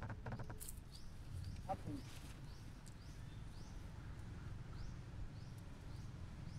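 Short high rising chirps from a small calling animal, repeated about once or twice a second over a low outdoor rumble, with a few clicks and a brief lower animal call about two seconds in.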